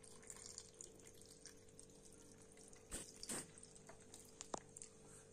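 Faint trickle of lemon juice poured from a steel bowl into a glass jar of lemon pieces and green chillies, with a couple of soft knocks about three seconds in and a light clink a little later.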